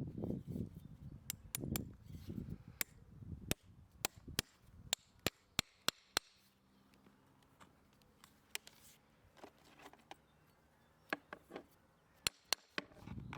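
Farrier's tools working on a horse's hoof: a series of sharp, irregular clicks and snaps, some in quick pairs, with low handling noise during the first few seconds.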